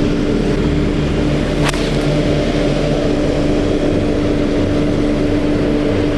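Golf cart driving, its motor running steadily with a constant hum over a low rumble. A single sharp click comes about a second and a half in.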